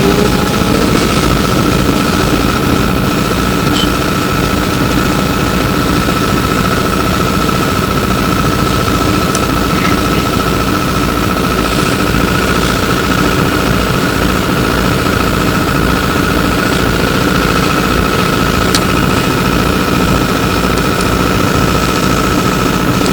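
Inside an E902 Flyer electric trolleybus: a steady electrical hum and whine over a constant rumble. The pitch holds level throughout, with a few faint clicks.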